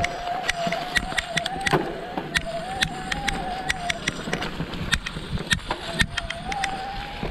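Mountain bike rolling over dry leaves and dirt on a trail, with sharp rattles and clicks from the bike over bumps. A steady, wavering buzz, typical of the rear freehub ratcheting while coasting, drops out for about two seconds after the middle and then returns.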